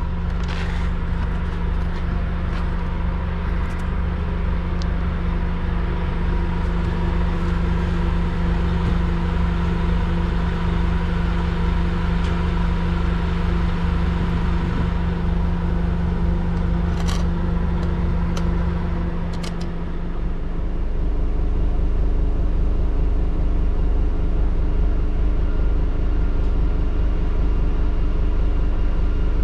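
Scania N250UD bus's 9-litre five-cylinder diesel engine running steadily at idle. About two-thirds of the way in the sound changes to a louder, deeper engine drone heard inside the bus's upper deck.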